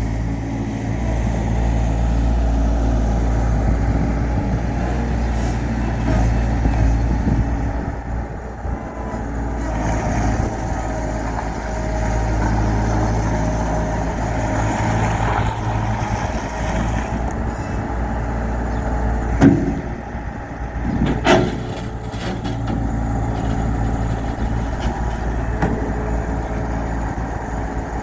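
Bobcat 7753 skid steer's Kubota diesel engine running, its level rising and falling at times. Two sharp knocks about twenty seconds in.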